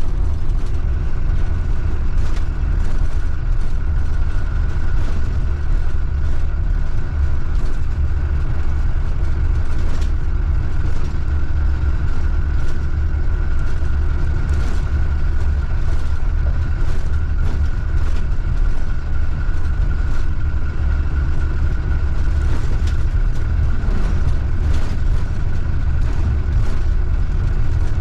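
Blue Bird school bus driving along a road, heard from inside by the driver's seat: a steady low engine and road rumble, with frequent short rattles and knocks from the body. A steady high whine runs over it from about a second in.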